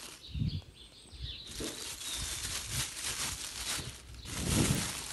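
Thin plastic bag crinkling and rustling as hands handle and smooth it, with a soft thump near the start and a louder one near the end.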